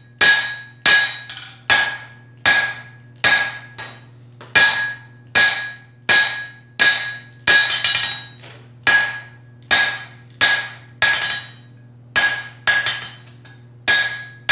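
Hand hammer striking a hot 5/8-inch steel bar on the edge of an anvil, about one blow every 0.8 seconds, each blow leaving a short metallic ring. This is drawing down the first notch of the three-notch configuration for a pair of blacksmith tongs, with the hammer held half on and half off the anvil.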